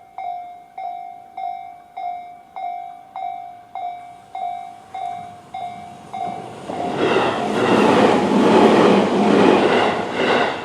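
Japanese railway level-crossing warning bell of the Tobu slow-tempo 'C' type, an electronic ding repeating a little under twice a second. About six and a half seconds in, a Tobu 20400-series electric train passes over the crossing and its noise drowns the bell until the very end.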